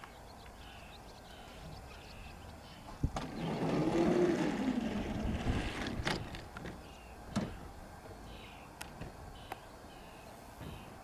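Quiet outdoor background of birdsong: small birds chirping again and again, and a pigeon cooing once about four seconds in, with a few sharp clicks.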